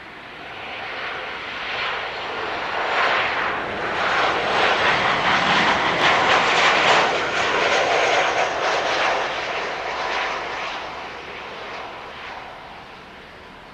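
Jet noise of a Boeing 737-800's CFM56-7B turbofans as the airliner passes by on landing, swelling over several seconds, loudest about halfway, then fading away.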